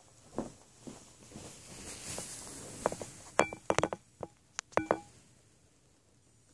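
A few soft footsteps on the floor, a brief rustle, then a quick cluster of sharp clicks and knocks with short ringing tones, as of something hard being handled at close range.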